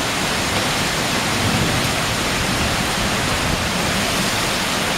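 Heavy, wind-driven rain pouring down in a thunderstorm, a loud steady rush of water.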